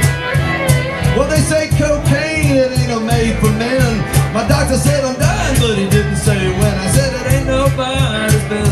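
Acoustic Americana band playing an instrumental break: a fiddle carries the melody over upright bass, guitars and a steady percussive beat.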